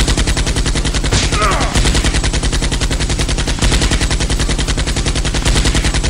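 Machine-gun sound effect: a fast, even rattle of automatic fire, about a dozen shots a second, that starts and stops abruptly, laid over a toy blaster being fired.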